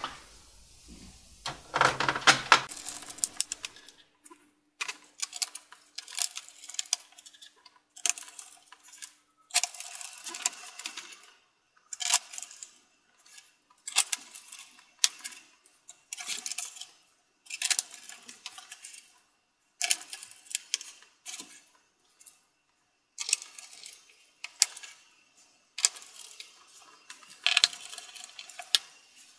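Small screwdriver and screws clicking and rattling against the plastic underside of a Lenovo ThinkPad T530 as its screws are driven back in. The clicks come in short clusters every second or two, several breaking off abruptly as if cut.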